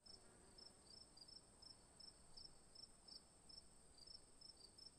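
Near silence with faint, evenly repeating high chirps, about two or three a second, over a thin steady high tone.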